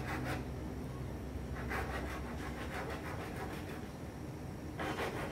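A hand scraper blade scraping weld bead out of the grooves of a uPVC window frame, cleaning the welded corner so the frame connectors will fit. Short scraping strokes come in a few clusters: at the start, about two seconds in, and near the end.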